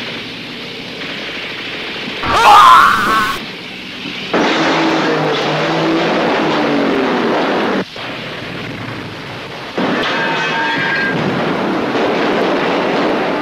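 Battle sound effects: a single loud explosion about two and a half seconds in, followed by a steady rumbling noise that drops away for a couple of seconds in the middle and comes back.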